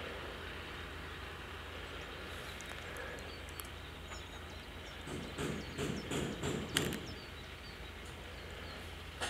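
Steady outdoor background noise with a low rumble and faint bird chirps, and a few irregular knocks and rustles about five to seven seconds in.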